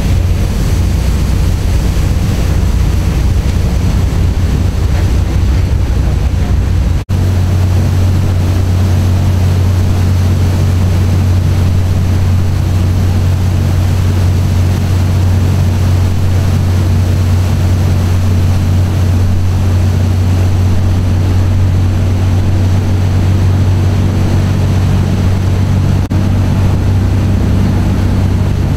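Passenger boat's engine running with a steady low drone, over the rush of its churning wake and wind on the microphone. The sound breaks for an instant about seven seconds in and again near the end.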